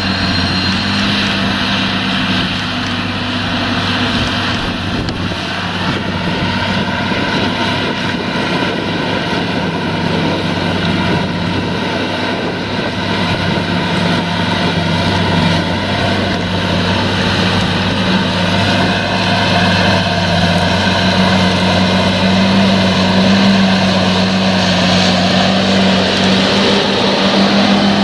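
John Deere 8345R tractor's six-cylinder diesel engine running steadily under load while pulling a disc cultivator through stubble, with the rough rush of the discs working the soil. It grows slowly louder as the tractor comes closer.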